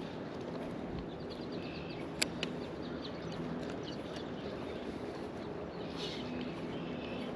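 Steady outdoor wind noise with faint bird chirps, and two sharp clicks a little over two seconds in.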